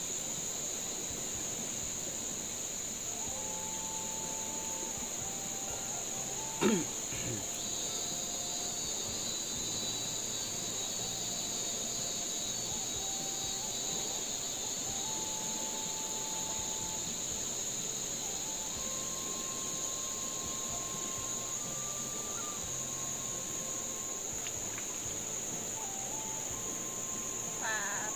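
Steady high-pitched drone of an insect chorus, with a faint slow run of held notes over it and one short knock about seven seconds in.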